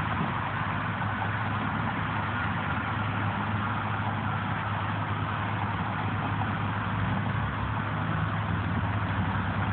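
Truck engine running steadily: a constant low hum over an even hiss, a little louder near the end.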